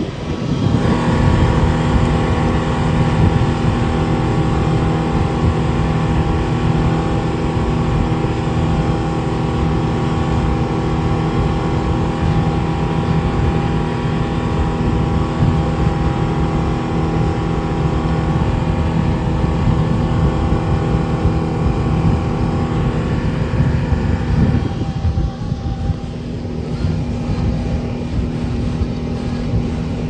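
Speedboat outboard motor running at speed with a steady drone, over the rush of water and wind. About 25 seconds in, the higher part of the engine note drops away, leaving a lower hum.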